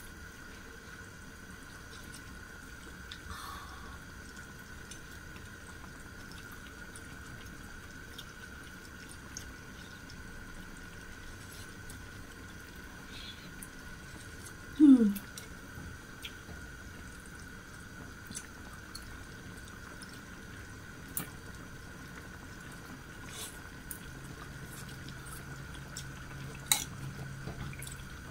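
Quiet sounds of tasting a pot of kimchi stew: soft slurps of broth from a metal spoon and a few light clicks of spoon and chopsticks against the pot. About halfway there is one short, loud, falling 'mmm' of someone savouring the taste.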